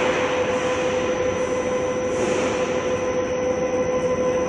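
CNC lathe turning a steel shaft held in its spinning three-jaw chuck: steady machine noise with a steady whine, and a higher hiss that swells and fades a few times.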